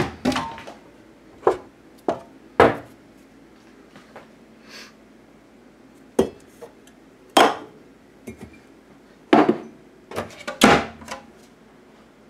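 Wooden kitchen cabinet doors being opened and shut, with mugs and dishes knocking together: a dozen or so sharp knocks and clatters at uneven intervals.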